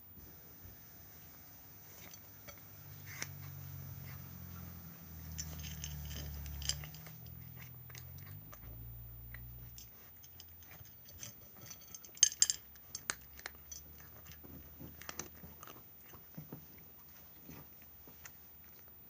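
Domestic cat eating noisily, with wet chewing and crunching of food and scattered sharp clicks. The loudest clicks come in a cluster about twelve seconds in, and a low rumble runs from about two to ten seconds in.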